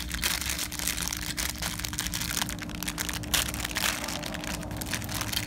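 Clear plastic bag crinkling and crackling as it is handled and opened, a continuous run of small sharp crackles.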